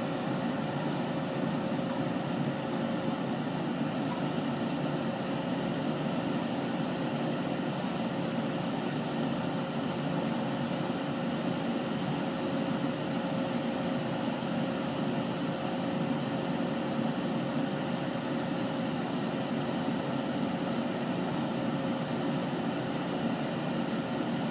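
Excavator's diesel engine running steadily: an even, unchanging hum with a thin steady tone over it.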